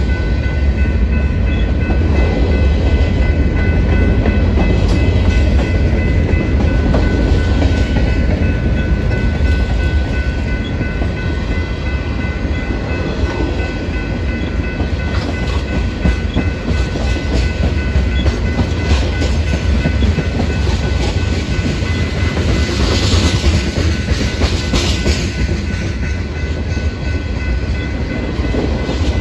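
Union Pacific freight train's tank cars and covered hopper cars rolling past: a steady low rumble of steel wheels on rail, with clicks as the wheels cross rail joints and a steady high-pitched whine.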